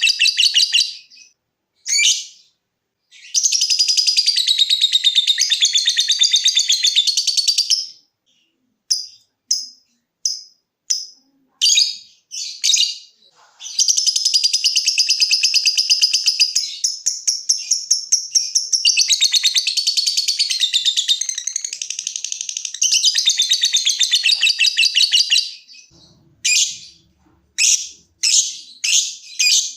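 Lovebird singing: long, rapid, high-pitched chattering runs several seconds long (the 'ngekek' chatter), broken by spells of short, separate chirps (the 'ngetik' ticking calls).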